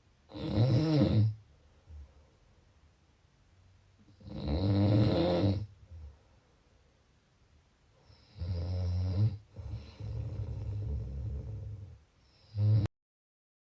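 A person snoring: two loud snores about four seconds apart, then a longer, quieter stretch of snoring breath and one short snore. The sound then cuts off abruptly to dead silence near the end.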